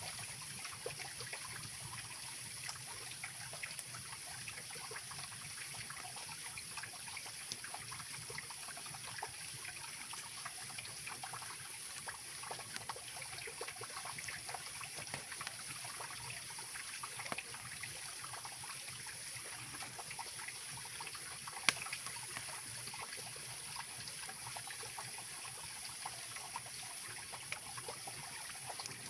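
Mountain river rushing and trickling steadily, with a campfire crackling in small scattered pops and one sharper crack about three-quarters of the way through.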